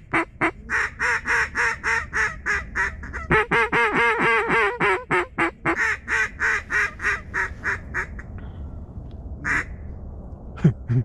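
A long, fast run of mallard hen quacks, about five a second, breaking briefly about three seconds in and then slowing and fading out around eight seconds in. A sharp knock comes near the end.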